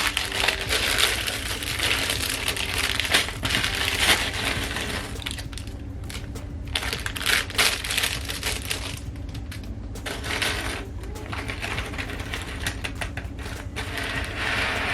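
Small plastic LEGO pieces clattering and rustling continuously as hands rummage and sort through them, with dense irregular clicks.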